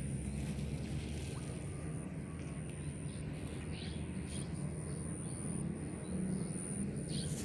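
Outdoor background: a steady low hum with a thin, continuous high-pitched tone over it, broken by a few short gaps.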